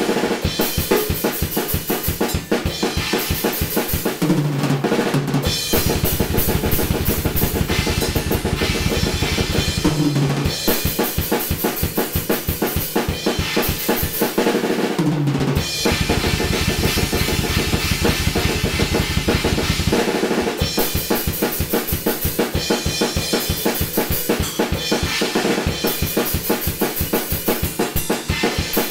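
Tama acoustic drum kit played in a fast metal style: rapid double-bass kick drum under snare and cymbals, with blast beats. A few short tom fills break in where the kick drum stops.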